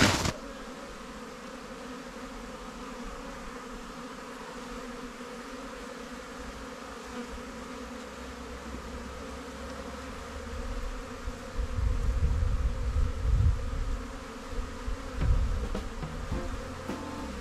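Honeybees buzzing in a steady hum around their hives during the first cleansing flight of late winter, with irregular low rumbles in the second half.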